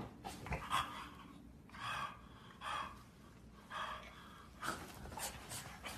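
Short breathy gasps, about six of them, coming roughly once a second.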